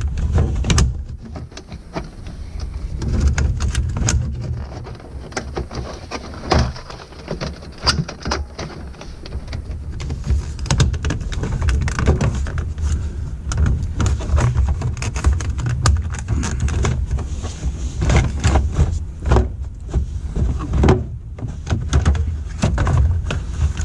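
Hard plastic centre console trim of a Jeep TJ Wrangler being worked down over the shifter: irregular clicks, knocks and plastic scraping on plastic, busier in the second half, over a steady low rumble.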